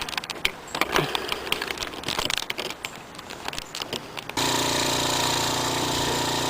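Scattered clicks and knocks of handling, then about four seconds in an electric air compressor switches on abruptly and runs with a steady hum and rush, supplying air to a homemade propane jet burner.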